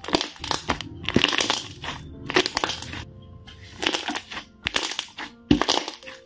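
Thick slime being squeezed and pressed by hand, with crackling, clicking squelches about once a second as air pockets pop. Faint background music underneath.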